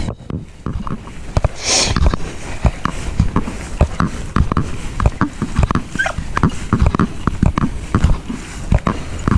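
Footsteps of a hunter walking through frosty grass and brush: a run of irregular thudding steps, with a brief swish of brushed branches just under two seconds in.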